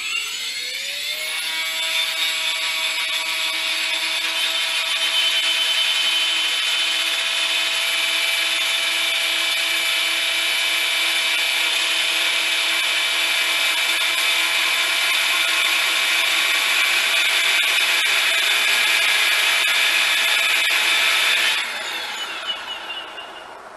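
Electric motor and rotor drive of a Hirobo Vertol tandem-rotor model helicopter spinning up, with a rising whine at the start. The rotors then run at a steady high whine with a buzz. About twenty seconds in, the motor is cut and the rotors wind down, the whine falling in pitch and level.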